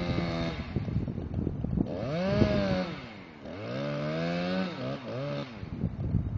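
Chainsaw engine revving up and down as it cuts, its pitch rising and falling, easing off briefly about three seconds in before revving again.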